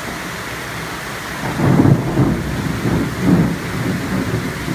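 Thunder rumbling overhead in a tropical thunderstorm, starting about a second and a half in with several low swells, loudest twice, then dying away. Under it is the steady hiss of heavy rain.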